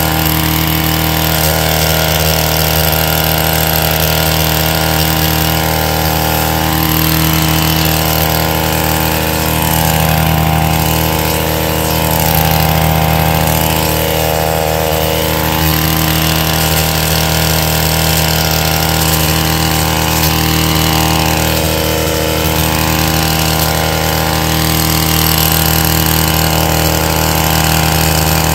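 Stihl KM 131R KombiMotor's small four-stroke 4-MIX engine running steadily at near-constant speed, driving the FH-KM cutter-bar attachment while trimming bushes, with only slight swells in level.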